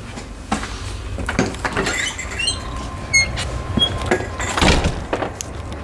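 A run of knocks and scrapes with a few short high squeaks about halfway through, the loudest knock a little before the end, over a low steady hum.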